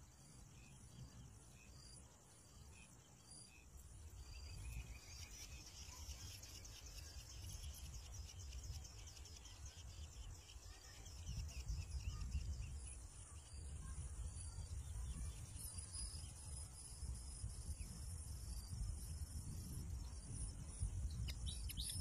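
Faint outdoor ambience: a high, fast insect trill that is strongest from about five to thirteen seconds in, with faint repeated chirps and a low rumble of wind on the microphone underneath.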